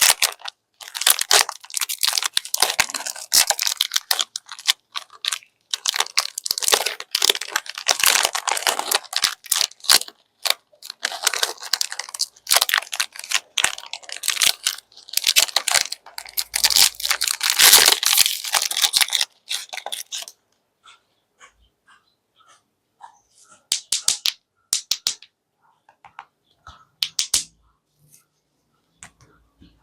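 Candy wrappers crinkling and tearing close to the microphone, in dense rustling crackles, then thinning out to a few sparse crackles and taps for the last third.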